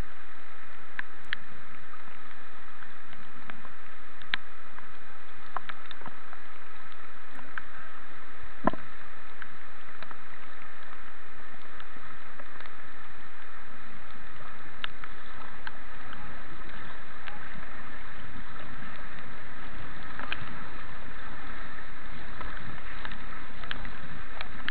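Steady rush of river water over shallow white-water rapids as a kayak paddles through, heard through a helmet-mounted action camera, with scattered sharp ticks and one louder knock about nine seconds in.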